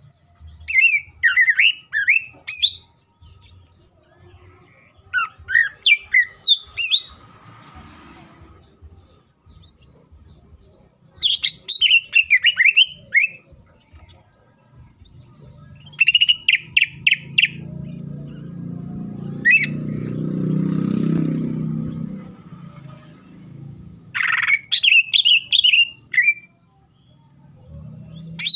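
Male greater green leafbird (cucak ijo) singing in bursts of quick, varied whistles and chirps rich in mimicked song, about six phrases with short pauses between. A low rumble swells and fades midway.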